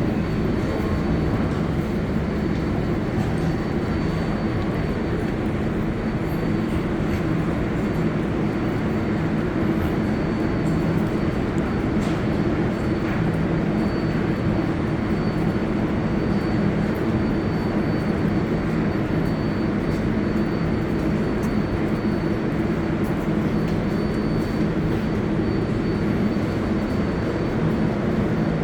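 New York City subway train on the 7 line making a steady low rumble and hum, with a faint high whine above it.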